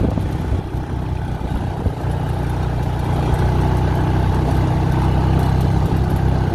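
Honda quad bike (ATV) engine running steadily while riding along a gravel drive. Its low drone firms up and grows slightly louder from about two seconds in.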